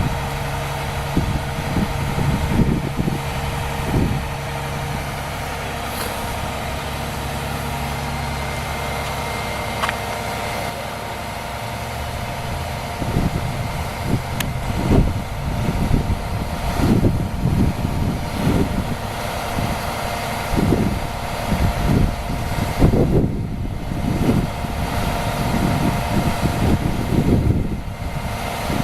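A fire truck's diesel engine idling steadily. From about halfway, irregular low rumbles come and go over it.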